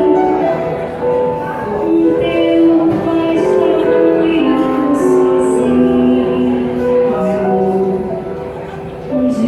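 Live music: a slow melodic passage of sustained notes, with no words sung.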